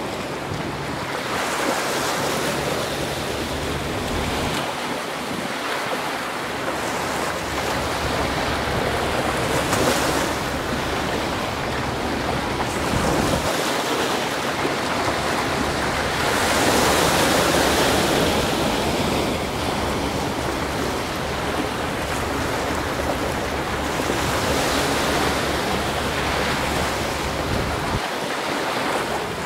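Sea waves washing against the shore, surging louder every six to eight seconds, with wind buffeting the microphone.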